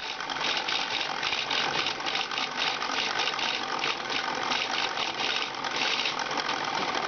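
LEGO motor and plastic gear train of a kite-painting machine running, a steady fast rattle as it drives the brush over the kite sail.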